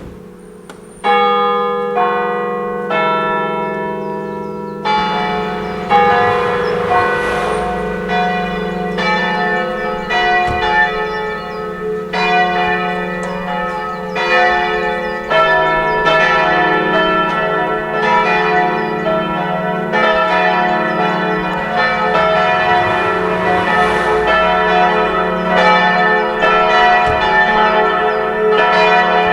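Church peal of five bronze bells cast by Petit & Gebr. Edelbrock, tuned C-sharp, E, F-sharp, G-sharp, A. A single bell starts striking about once a second, then about five seconds in the others join, and the peal rings on with overlapping strokes.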